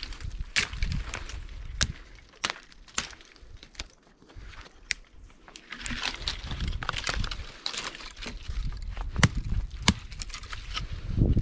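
Dry wood snapping and cracking in a string of irregular sharp snaps, over low rumbling handling noise.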